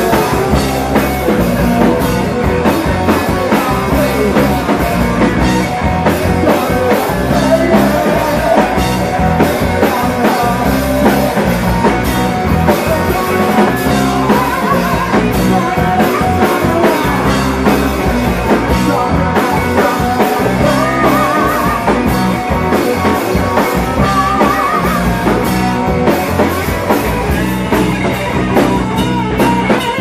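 Live rock band playing loudly: electric guitar, bass and drum kit with singing, wavering held notes rising above the mix in the second half.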